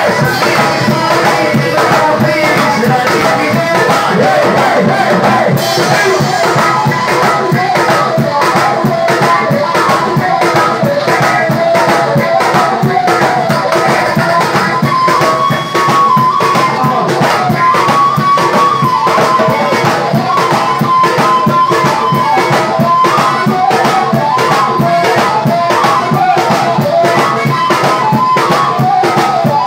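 Live band music: a man singing into a microphone over drums and hand percussion keeping a steady beat.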